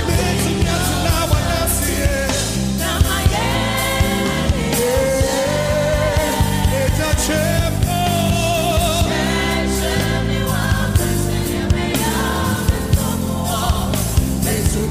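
Gospel worship music: a lead voice and backing choir singing over a band, with a sustained bass and a steady drum beat.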